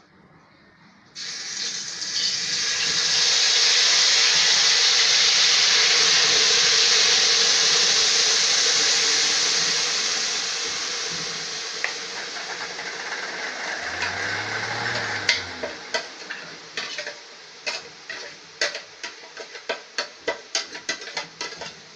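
Wet masala paste poured into hot oil in a kadhai: a loud sizzle starts suddenly about a second in and fades slowly over the next ten seconds or so. Near the end come quick metallic clinks of a spoon scraping paste out of a steel jar and stirring in the pan.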